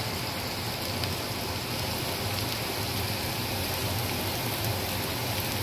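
Diced red potatoes frying in a skillet: a steady, even sizzle.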